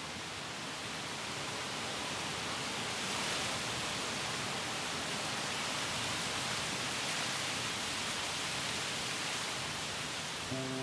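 A steady, even rushing hiss with no tones in it, swelling slightly in the middle and easing off again.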